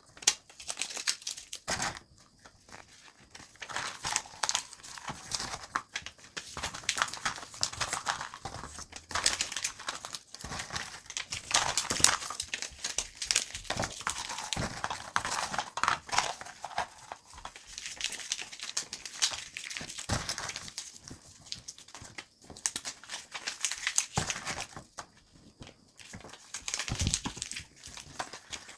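Small pieces of paper being crumpled by hand, one after another, into balls around dog treats: irregular bouts of crinkling with short pauses between them.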